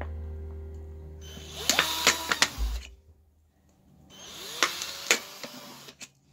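Cordless drill run in two short bursts, its bit punching through a thin plastic bottle with sharp crackling clicks, with a brief silent pause between the bursts.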